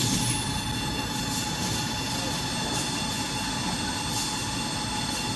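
Tissue paper converting line running: steady mechanical noise from the chain-driven log accumulator and conveyors, with several constant high whining tones and a faint hiss now and then.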